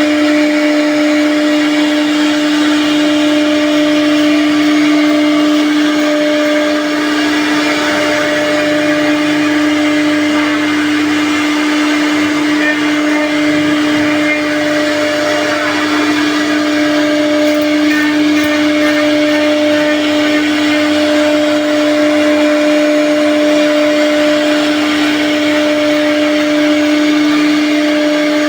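CNC machine spindle motor running at constant speed: a steady whine over a dense rushing noise, unchanging throughout.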